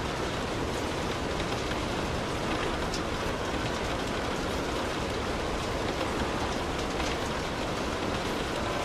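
Light rain falling on a car, heard from inside the cabin: a steady even hiss with scattered faint drop ticks.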